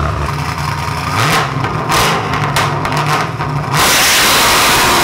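Car engine idling, then revved: the pitch climbs about a second in, and from about four seconds in it is held at high revs with a loud, steady rush. It is really loud.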